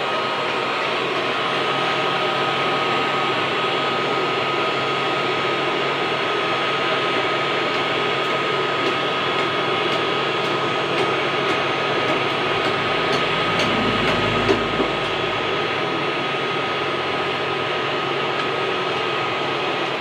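Electric forge blower running steadily, a constant rushing air noise with a steady whine, forcing air into the forge fire. A few light clicks partway through.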